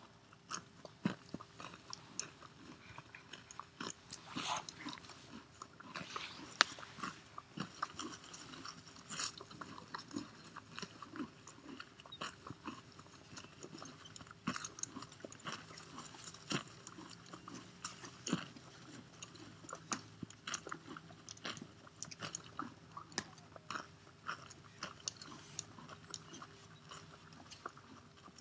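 Horse grazing: irregular crisp rips and crunches as it tears off mouthfuls of green grass and chews them.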